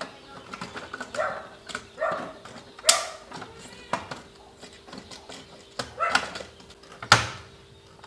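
Clicks and knocks of wires and metal as gloved hands work inside a steel breaker panel box, with two sharper knocks about three and seven seconds in. Short animal calls sound faintly in the background.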